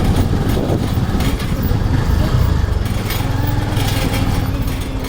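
A motor vehicle's engine running steadily, with a rapid low pulsing.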